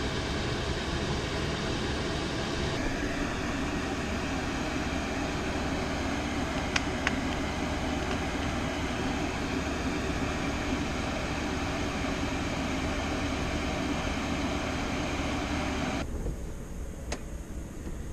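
Diesel air heaters running: a steady blower whoosh with a low hum. The sound shifts about three seconds in, two sharp clicks come around seven seconds in, and it turns duller and quieter near the end.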